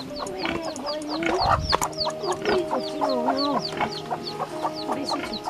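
Domestic chickens clucking in wavering calls, with short, high, falling peeps repeating several times a second. A brief low knock comes about a second and a half in.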